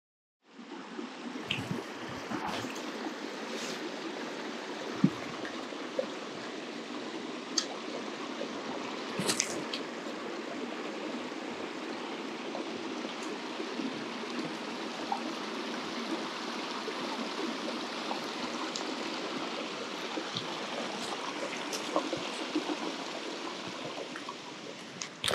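A mountain stream running steadily over rocks, with a few sharp clicks and knocks, the loudest about five seconds in.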